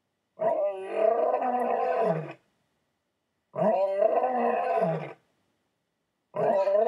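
Lion roaring: three long roars, each ending in a falling note, with silence between them.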